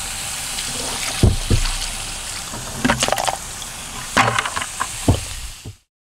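Dirty rinse water splashing and trickling out of a plastic wash bucket and its grit guard, with several hollow plastic knocks as the grit guard is pulled out and set down. The sound cuts off suddenly near the end.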